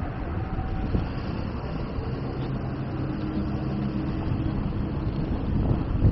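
Street traffic noise: a van drives past close by, then a steady low engine hum with a single click about a second in.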